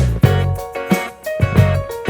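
Background music with a steady beat, bass and guitar.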